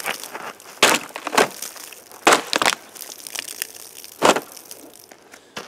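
A mini parang's blade stabbing through a plastic water bottle: a handful of short, sharp crunching crackles of the thin plastic, spread over the few seconds.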